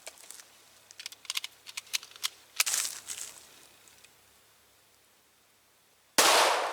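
A single shot from a .45 caliber 1911 pistol near the end, a sudden loud report that trails off in a fading echo. Before it come a few small clicks and rustles of handling.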